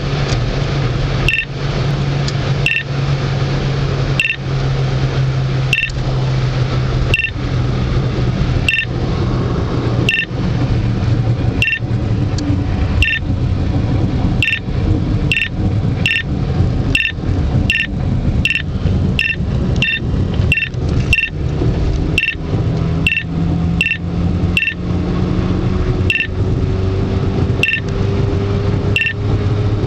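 Beltronics Vector 955 radar detector beeping a Ka-band radar alert, from a fixed LDR-6 speed radar on 35.1 GHz. The short high beeps come about every second and a half, quicken to nearly twice as fast in the middle as the signal grows stronger, then slow again near the end. Steady car road noise and engine hum run underneath.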